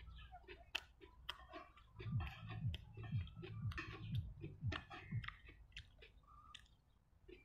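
A man chewing a mouthful of steamed bun with fried onion and egg close to the microphone: a dense run of wet mouth clicks and smacks, busiest in the middle.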